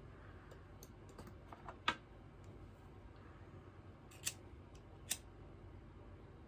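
A scatter of small handling clicks, then two sharp clicks of a cigarette lighter being struck, a little under a second apart, as it catches and lights a cigarette.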